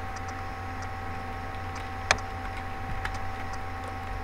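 Faint clicks of typing on a computer keyboard, with one sharper click about two seconds in, over a steady electrical hum from the recording setup.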